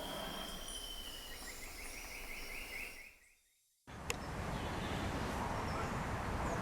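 Outdoor background noise with a bird's whistled note that breaks into a fast trill. About three seconds in the sound fades out to near silence, then cuts to a different steady, rumbling background noise with a single click.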